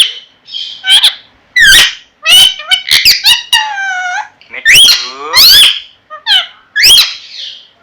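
Pet parrot calling: a rapid series of loud, shrill squawks and whistles whose pitch sweeps up and down, with one longer, falling call a few seconds in.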